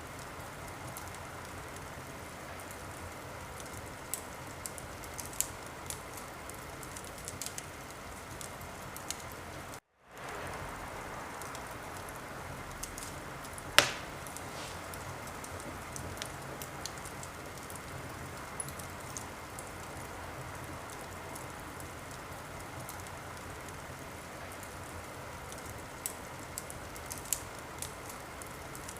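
Wood fire crackling in a fireplace: a steady hiss with scattered sharp pops and one much louder pop about fourteen seconds in. The sound drops out completely for an instant just before ten seconds.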